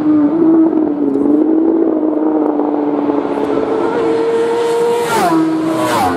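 Superbike road-racing motorcycles at full throttle. The high engine note holds steady, then drops sharply in pitch about five seconds in as a bike passes close by, and drops again just before the end as a second bike passes.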